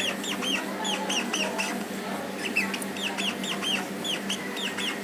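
Rat squeaking: a quick run of short, high, arched squeaks, about four or five a second, with a brief pause near the middle, over a steady background hiss and hum.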